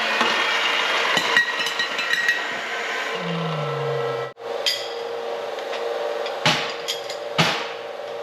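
A few sharp knocks and clinks of steel frame pieces being handled, over a steady hum.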